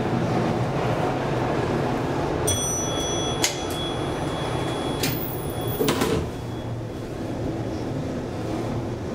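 1977 KONE inclined elevator: a steady low rumble, with a high electronic tone sounding for about three seconds from about two and a half seconds in, then a click and clunk near six seconds in as the sliding door closes, after which the rumble goes on a little quieter.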